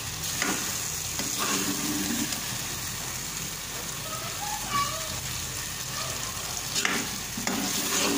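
Chickpea curry sizzling as it is fried (bhuna) in its masala in a metal pot, while a metal ladle stirs it, with a few scrapes and knocks of the ladle against the pot near the start and near the end.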